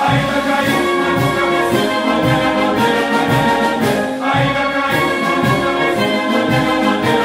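Military band music for a Brazilian Army battalion song: brass playing held tones over a steady march beat.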